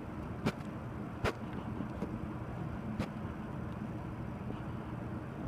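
Steady low background rumble with three short, sharp clicks spread through it.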